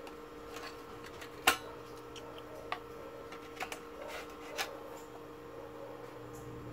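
A few sharp clicks and taps of soldering tools being handled at a circuit board, the loudest about a second and a half in, over a steady electrical hum.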